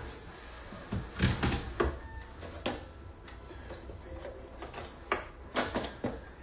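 A series of irregular sharp knocks and clicks, about seven or eight of them, bunched in two groups, over a steady low hum.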